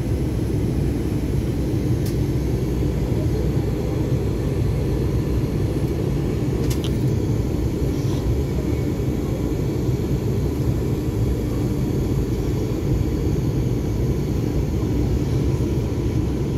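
Steady low rumble of a passenger train running at speed, heard from inside the carriage: wheels on rails and running noise at an even level, with a few faint ticks.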